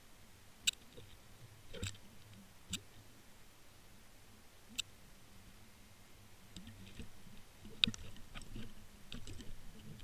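Scattered sharp clicks and ticks heard underwater, a few single clicks spaced a second or two apart, then a denser run of clicks and soft knocks in the last few seconds.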